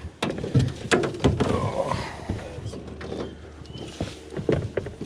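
Irregular knocks and clunks of handling in a fishing skiff, just after a trout has been landed.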